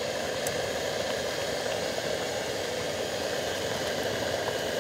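Portable butane gas stove burner running with a steady rushing noise under a pot of boiling soup.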